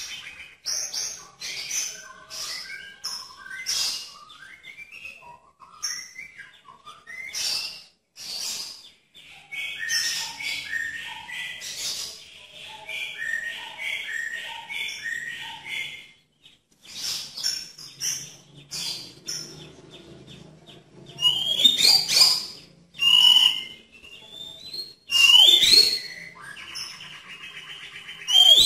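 White-rumped shama singing a varied song of short whistled phrases and rapid chattering runs, with several loud, sharply rising whistles about three quarters of the way through.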